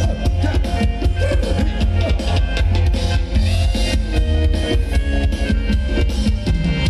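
Loud amplified live band playing Thai ramwong dance music, with heavy bass and a steady drum beat.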